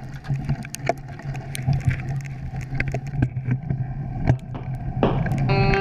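Mountain bike rolling over slushy snow: a steady low rumble of tyres and wind on the camera, with scattered crackles and rattles. Guitar music comes in near the end.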